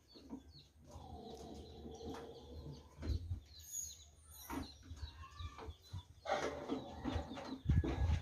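Chickens and small birds calling, with one long pitched call about a second in and short high chirps after it, over scattered sharp knocks and clicks.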